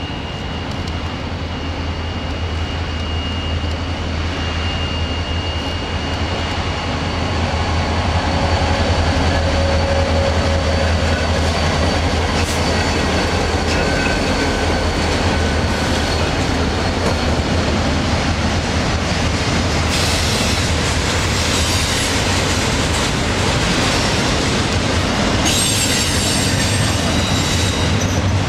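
Train passing, its cars rattling over the rails with high-pitched wheel squeal and bursts of brake hiss, over a steady low drone. It grows louder over the first several seconds.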